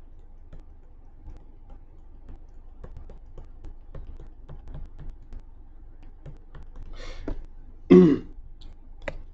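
A series of faint, light ticks, then a man clears his throat with a short, loud cough about eight seconds in.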